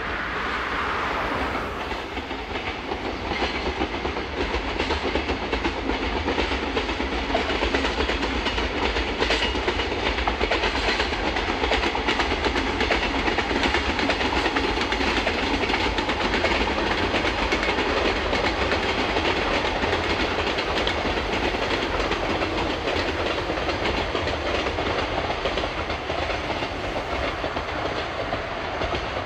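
Freight train of container wagons hauled by a DD51 diesel locomotive rolling past, the wagon wheels clattering steadily over the rail joints.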